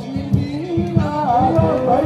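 A voice singing a wavering, ornamented melody over a steady drum beat.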